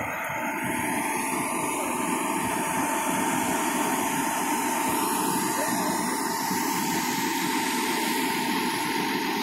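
A fire engine running steadily, with a constant high whine over a broad low rumble.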